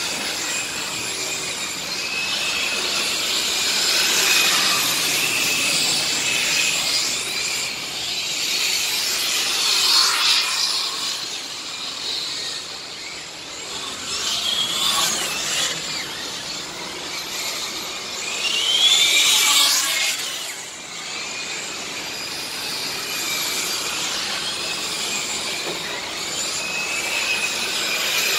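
Radio-controlled model race trucks running laps on an asphalt track: a steady high whine of their motors and gears, swelling and sliding up then down in pitch as trucks pass close by, three times, loudest about two-thirds of the way through.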